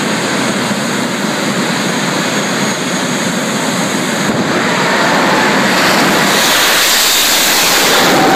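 Jet dragster's jet engine running loud at the start line, then spooling up to full thrust about four seconds in as the car launches, growing louder with a high whine toward the end.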